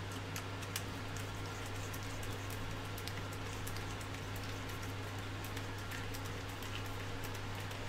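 Faint, irregular small clicks and ticks of a screwdriver turning a screw into a printed-plastic extruder part, over a steady low hum.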